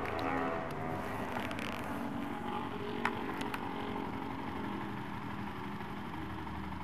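Motorcycle engine idling steadily. Two sharp clicks about three seconds in, as the camera is moved.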